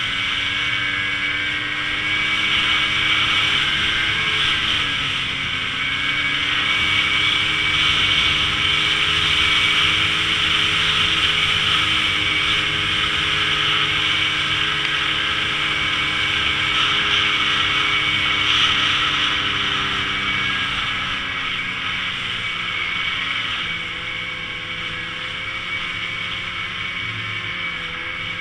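Ski-Doo Summit 850 E-TEC snowmobile's two-stroke twin engine running at steady riding revs. The pitch dips briefly about five seconds in and picks up again, and the engine eases off slightly near the end.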